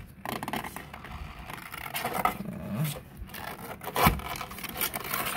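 Box turtle scrabbling in a cardboard box: irregular scraping and scratching of its claws and shell on the cardboard, with one sharp knock about four seconds in.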